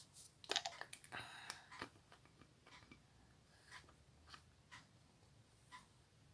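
Faint clicks and small rustles of hands handling a bottle of vanilla flavouring over a bowl of slime mixture: a short cluster in the first two seconds, then single light ticks every half second or so.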